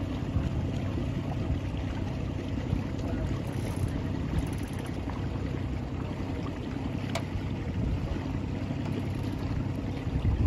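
Steady low rumble of wind on the microphone and water rushing past a moving boat, with a faint steady engine hum underneath. A single light click sounds about seven seconds in.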